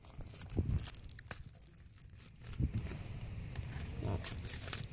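Clear plastic wrapping on a small Shopkins cardboard box crinkling and tearing as it is pulled open by hand, with a few soft handling bumps.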